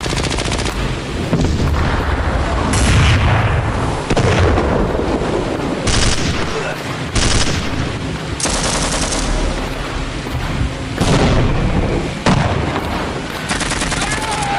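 Sustained automatic gunfire: rapid shots with no break, with louder bursts standing out every second or two.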